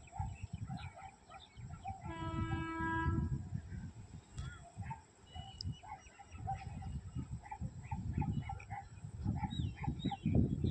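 Locomotive horn of an Indian Railways express train sounding once, a steady blast of about a second, about two seconds in, as the train approaches to run through a station without stopping. Birds chirp throughout, and a low rumble builds toward the end.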